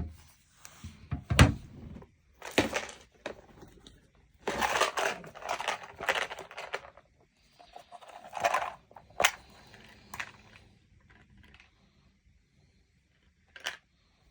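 Hands rummaging for a tattoo needle cartridge, handling small plastic items: irregular clicks, rustling and crinkling, with a sharp knock about a second and a half in and a few more clicks later.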